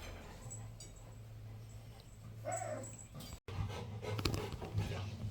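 A dog gives one short whine about halfway through, over a low steady hum. After a brief drop-out in the sound come scattered clicks and scuffling.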